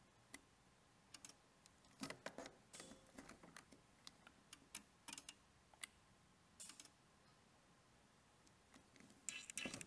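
Near silence with faint, scattered clicks and taps from handling the insulation tester and its test probes during an insulation-resistance measurement, bunched together about two to three seconds in, with a few single clicks later.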